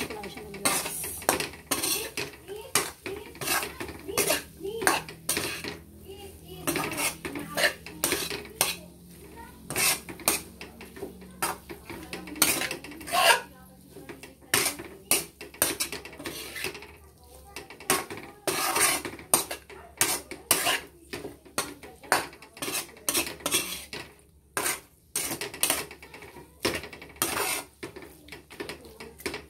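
Metal spatula scraping and knocking against a wok while cubes of fried tofu and luncheon meat are stir-fried, in quick, irregular strokes a few times a second.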